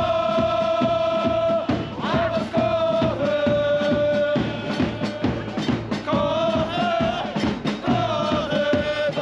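Football supporters' chant: a crowd sings a melody in long held notes over a steady drumbeat.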